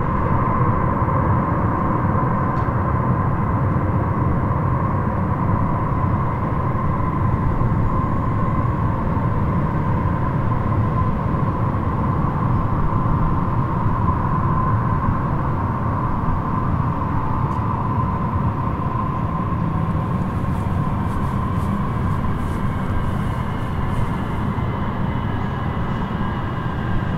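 Steady low rumble with a constant hum running through it: the ambience of an underground rail station and its tunnel.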